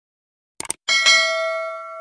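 A quick double click, then a bell-like ding about a second in that rings with several clear tones and slowly fades.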